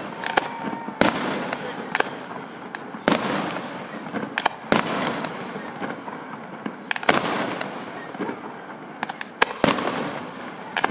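Aerial fireworks bursting: five or six loud bangs a second or two apart, each trailing off in echo, with smaller pops and crackling between them.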